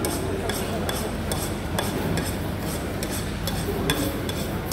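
Spoon scraping and clinking on a plate as food is scooped up, a short stroke about every half second, over a steady background hum.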